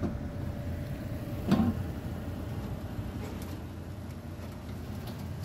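Car engine running at low speed while the car rolls on a car-hauler trailer's aluminium loading ramp, a low steady rumble. A short pitched sound about a second and a half in.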